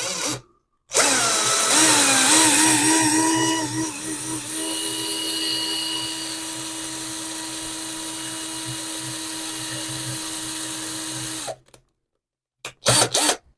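Small electric drill boring a vent hole into a watchmaker's loupe. The motor's whine wavers in pitch for the first few seconds as the bit bites, then runs steadily for several seconds and stops shortly before a few short clatters near the end.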